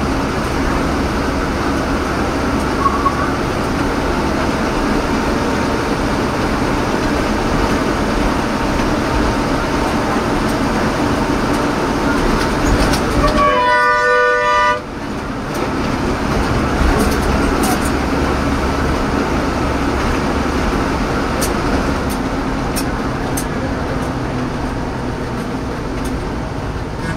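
Steady engine and road noise from inside a moving bus, with a loud vehicle horn blast lasting just over a second about halfway through.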